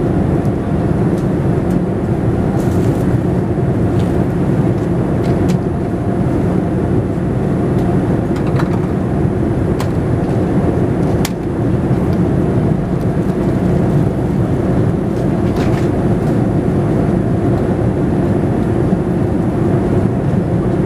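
Steady cabin drone of a Boeing 787-10 airliner in flight: engine and airflow noise heard from a window seat, with a few faint clicks scattered through it.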